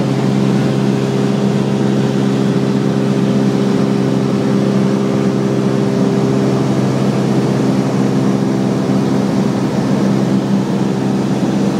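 Light aircraft's engine and propeller running steadily, heard from inside the cabin, with an even, unchanging drone.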